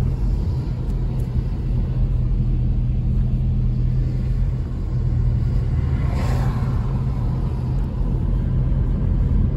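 Car interior road noise while driving on a wet road: a steady low rumble of engine and tyres, with a brief swell of hiss about six seconds in.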